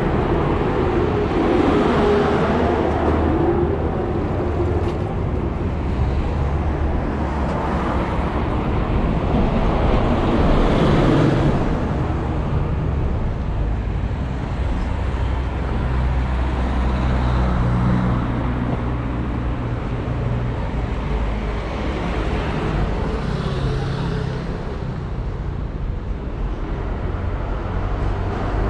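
Street traffic: cars driving past over a steady low rumble of engines, with the loudest pass about ten seconds in.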